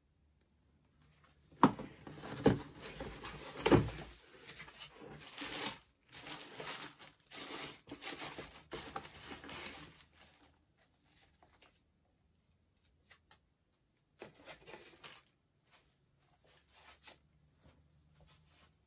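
Cardboard shoebox handled and opened, then tissue paper rustling and crinkling as a sneaker is unwrapped. Three sharp knocks of the box come about two to four seconds in, and the rustling thins out to occasional handling noise after about ten seconds.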